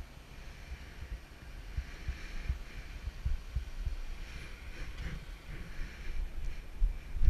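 Muffled low thumps and rumble picked up by a GoPro riding on a bicycle as it rolls down a driveway toward the street, with wind buffeting on the camera. A heavier bump comes near the end.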